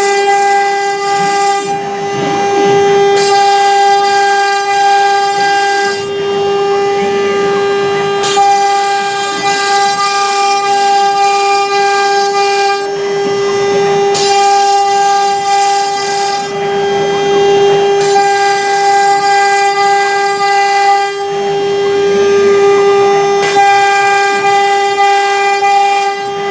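CNC router's 3 kW water-cooled spindle whining steadily at one high pitch, with bursts of hiss that come and go every two to four seconds as the bit engraves MDF.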